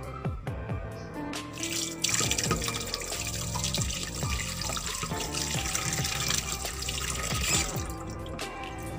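Water running from a tap into a sink, starting about two seconds in and stopping near the end, over background music.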